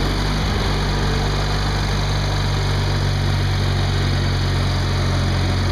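Garden tractor's small engine speeding up as the throttle opens, then running steadily at the higher speed while the tractor drives along.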